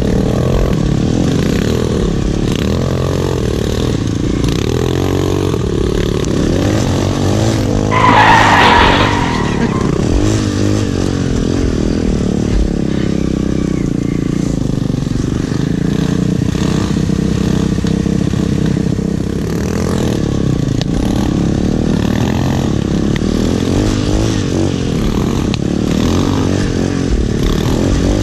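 Onboard sound of a Loncin dirt bike's single-cylinder engine running along a trail, its pitch rising and falling with the throttle. About eight seconds in there is a short, louder burst with a high tone.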